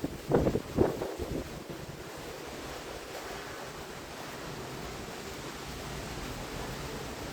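Wind buffeting the microphone, with two hard gusts in the first second, then a steady rush of wind noise.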